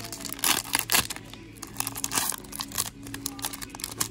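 Trading-card booster pack and its cards being handled: irregular crinkling and tearing rustles of the wrapper, with sharp card snaps and scrapes.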